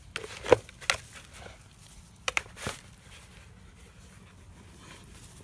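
A large dog biting and chewing on a plastic plant pot: a handful of sharp crunches and cracks in two short clusters, the loudest about half a second in, then a second cluster a little after two seconds.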